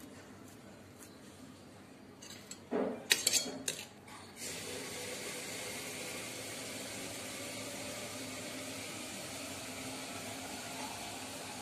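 A short clatter of steel kitchen utensils, a spoon knocking against steel bowls and plates, about three seconds in, followed by a steady hiss of background noise.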